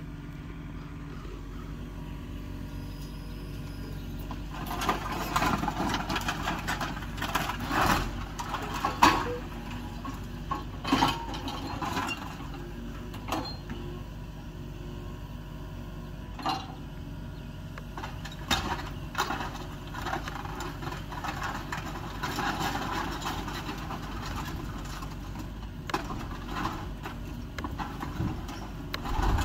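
Mini excavator engine running steadily while the machine breaks up a demolished building, with repeated crashes, knocks and clattering of wood and sheet-metal debris, the loudest bang about nine seconds in.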